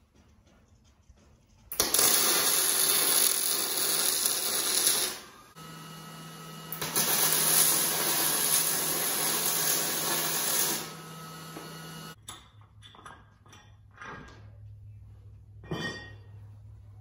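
A handheld power tool run in two long bursts of about three to four seconds each, worked at the centre of a trailer spare wheel. Scattered knocks and a thud follow as the tire is handled.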